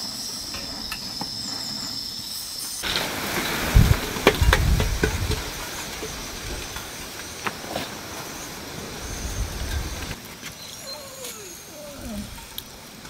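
A portable gas-canister burner hissing steadily under a pot. About three seconds in this gives way to hands rinsing and rustling fresh greens in a metal colander under a jerrycan tap, with a few light clicks and knocks.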